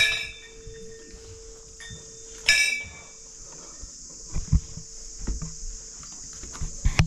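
A temple bell struck twice, about two and a half seconds apart, each strike ringing briefly, over a steady high drone of insects. A few soft thumps follow in the second half.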